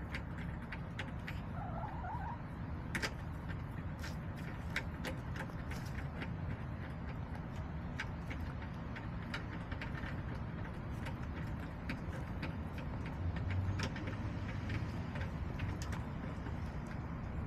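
Backyard chicken coop ambience: a steady low rumble with many scattered small sharp taps and clicks, and a brief soft call from a hen about two seconds in. The low rumble swells for a couple of seconds about thirteen seconds in.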